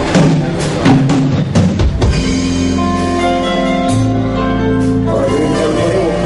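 A band playing an instrumental passage with no vocals. Drum hits come in the first two seconds, then held chords sound over a steady bass line.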